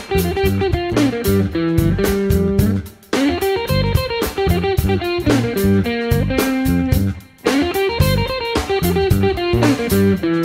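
Background music led by electric guitar, a steady run of plucked notes that breaks off briefly twice.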